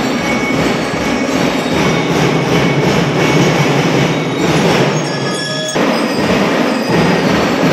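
School drum and bugle corps playing: massed drums beating a steady rhythm under bugle chords, with a held note a little past halfway that cuts off sharply.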